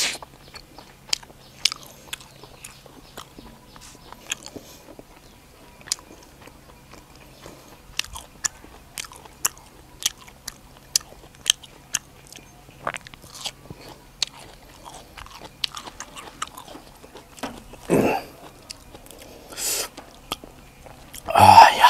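Close-up chewing and crunching of raw vegetables and papaya salad: wet mouth clicks and crisp crunches at an irregular pace, with a few louder crunching or rustling bursts near the end.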